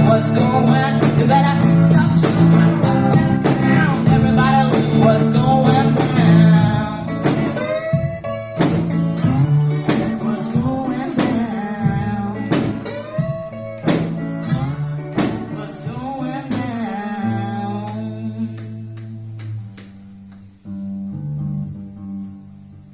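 One-woman band playing the closing bars of a song live: strummed guitar with singing and a high cymbal hiss. The cymbal drops out about seven seconds in, the strums thin out and fade, and it ends on a low held note.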